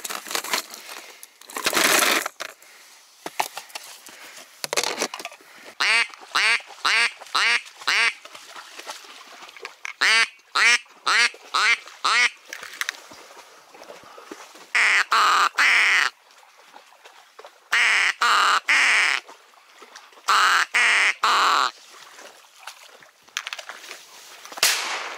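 Ducks quacking in runs of repeated calls: a faster run about ten seconds in, then several louder, harsher bursts of calls in the second half.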